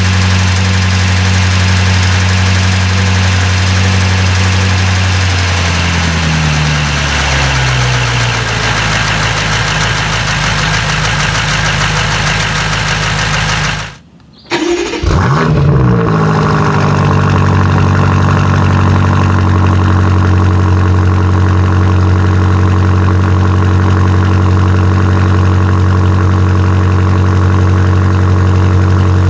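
2019 BMW M5 Competition's twin-turbo 4.4-litre V8 on cold starts, exhaust valves open in Sport Plus. At first it is at fast idle, and the idle eases down in steps a few seconds in. About halfway the sound cuts out briefly; the engine then starts again, flares and settles into a steady fast cold idle.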